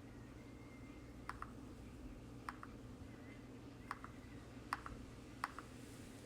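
Mechanical keyboard keys pressed one at a time: about five separate clacks, each followed at once by a softer second click, over a faint steady hum.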